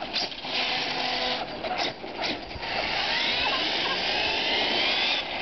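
HPI Savage Flux HP electric RC monster truck's brushless motor under throttle. First a few short blips, then from about halfway a high whine that rises in pitch as the truck speeds away, cutting off sharply near the end.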